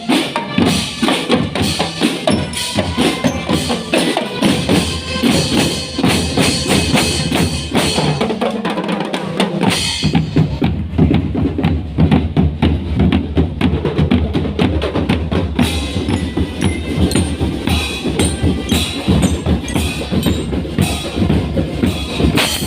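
Marching drumband playing: snare and bass drums beating a dense steady rhythm, with pitched notes sounding above it. About ten seconds in the sound gets heavier in the bass.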